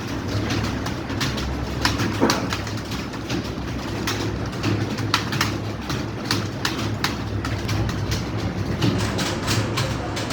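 Many computer keyboards clattering at once as a roomful of students types at speed in a timed typing test: dense, irregular key clicks.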